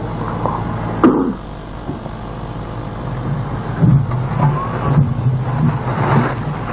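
Steady low electrical hum from the sound system. A sharp knock comes about a second in, and there are scattered handling and rustling noises near the microphone.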